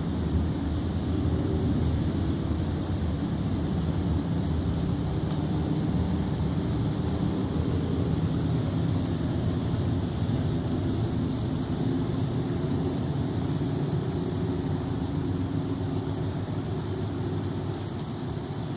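Steady rushing of a rocky woodland creek, heard as a constant low rumble of water, with a faint steady high whine above it.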